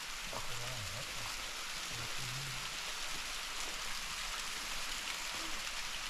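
A waterfall at its lowest flow, a thin stream of water splashing down a rock face, giving a steady hiss.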